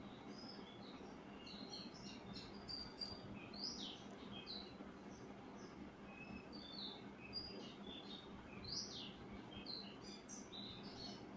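Small birds chirping faintly: many short, high, irregular chirps, with a steady low hum underneath.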